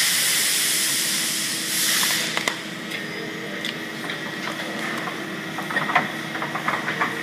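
Compressed air hissing out of a pneumatic welding machine, fading over about two seconds, with a second shorter hiss, then scattered clicks and knocks from the machine over a steady hum.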